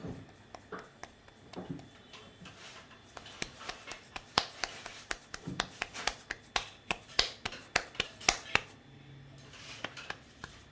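Hands patting and pressing maize-flour (makki) dough into a flat roti on an oiled board: a run of sharp slaps, about three a second, through the middle of the stretch, with softer handling sounds before it.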